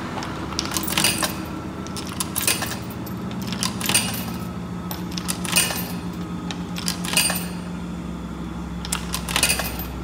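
Euro coins fed one by one into the coin slot of a laundromat payment machine, each dropping in with a short metallic clink, about six in all, a second or two apart. A steady low hum runs underneath.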